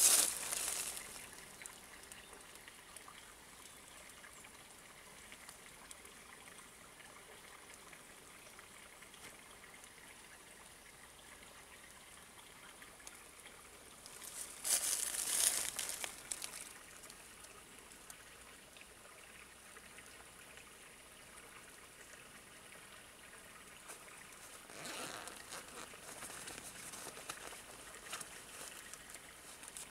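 Faint, steady rushing noise like running water, broken by a few bursts of rustling: one at the start, a louder one about halfway through, and a weaker stretch near the end.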